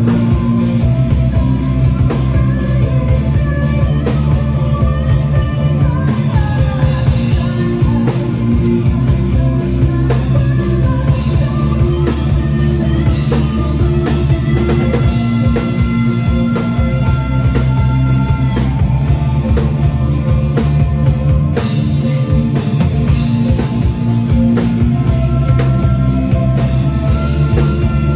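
Rock band playing live: a drum kit keeping a steady beat under guitar, with a voice singing.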